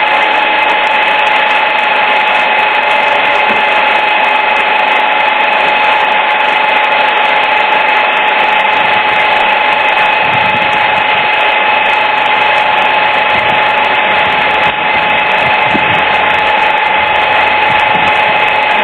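Small electric motor of a handheld massager running steadily, with a constant high whine and no change in speed.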